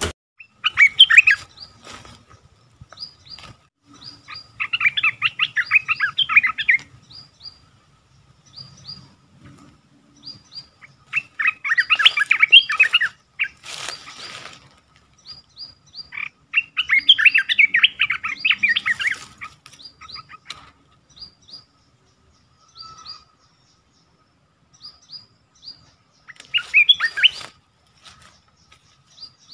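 Olive-winged bulbul singing: about five bursts of rapid, bubbly warbling, each lasting a second or two, with short high chirps in between.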